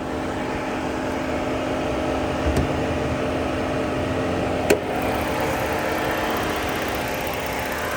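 A car running at idle with its fan blowing, a steady mechanical hum. A soft thump comes about two and a half seconds in and a sharp click a couple of seconds later.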